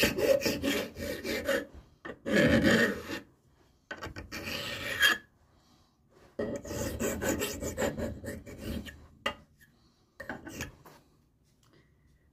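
Hand file rasping back and forth across the edge of a Holley carburetor throttle plate clamped in a bench vise, rounding the square edge into a rolled, wing-like profile. The filing comes in several runs of strokes with short pauses and dies away near the end.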